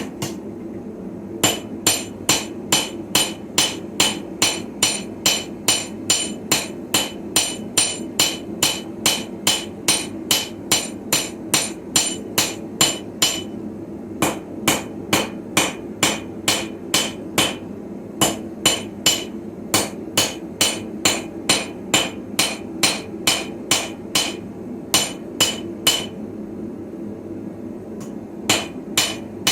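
Hand hammer striking steel on an anvil in forging, a run of ringing blows about two to three a second, broken by a few short pauses. A steady low hum runs underneath.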